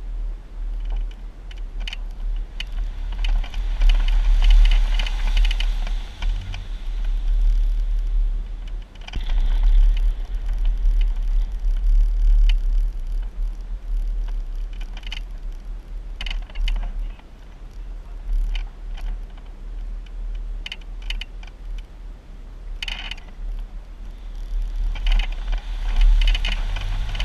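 Jeep crawling over a rough trail, a low engine and drivetrain rumble under a steady patter of clicks and rattles from loose parts and gear bouncing. The rumble swells louder several times.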